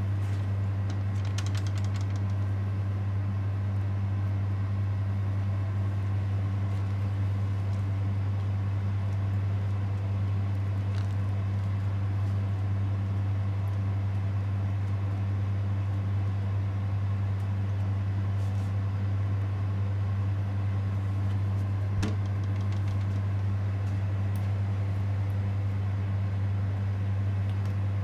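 A steady low machine hum, unchanging, with a few faint light clicks over it.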